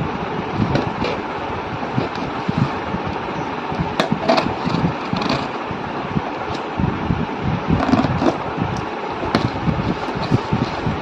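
Plastic courier packaging crinkling and rustling as a parcel is opened by hand, with many short sharp crackles over a steady rushing noise.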